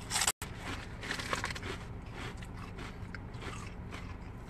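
Someone chewing crunchy food inside a car: a few short crunches and crackles over a steady low hum.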